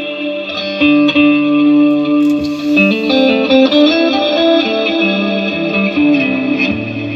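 Electric guitar played through a Fractal Audio FM3 amp modeler and effects unit, a run of held notes and chords that change every second or so. It is a sound test showing the unit working after its power supply board was replaced.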